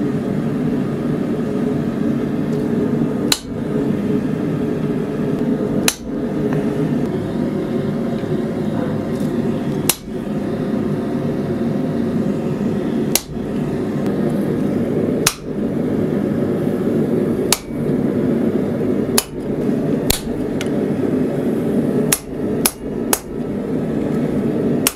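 Hand hammer striking a hot-cut chisel into a red-hot steel bar on an anvil, cutting a slot for a knife guard. About eleven sharp blows come a few seconds apart, quickening to several close together near the end. A steady low hum runs underneath.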